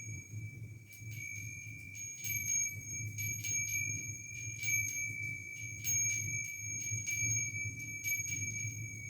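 Light jingling, chime-like strikes over a steady high ringing tone, with a low hum underneath.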